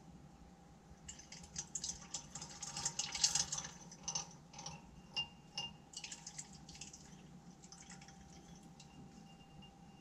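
Rapid light clinking and ticking of glass at the beaker on the magnetic stirrer, densest a few seconds in and thinning out, with a couple of brief ringing notes, over a faint steady hum of the stirrer hotplate.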